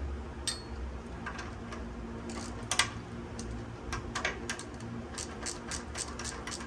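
Hand tool working the motorcycle's metal shift linkage: sharp metallic clicks, scattered at first, then a quicker run of several a second in the last couple of seconds, over a faint steady hum.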